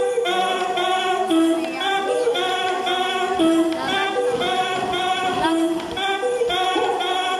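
Zumba dance music at a breakdown: the bass and drums drop out, leaving a melody of short held vocal notes. The beat comes back right at the end.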